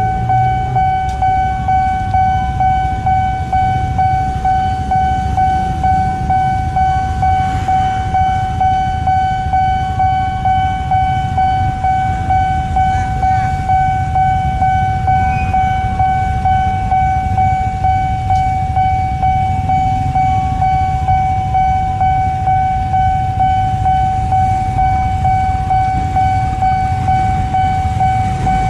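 Railroad level-crossing alarm sounding one steady, unbroken electronic tone while the barriers are down, warning of an approaching train. A low rumble of idling motorcycles lies underneath.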